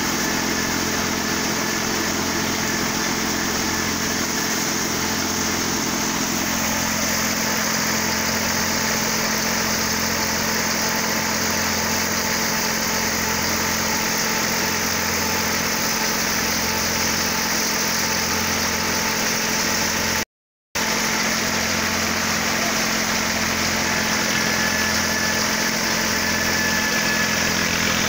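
Steady drone of an Eicher 485 tractor's three-cylinder diesel engine driving a wheat thresher, with the engine and the spinning thresher running together at a constant speed. The sound cuts out for a split second about two-thirds of the way through.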